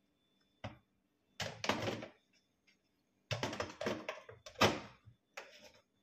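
Dishwasher filter being fitted back into the sump at the bottom of the tub: a run of sharp clicks and clatters in several bursts, the loudest a little before the end.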